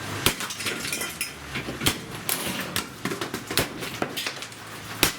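Hard plastic of a vacuum cleaner being struck and smashed: irregular loud knocks about every second or so, with smaller clattering and rattling of loose parts between them.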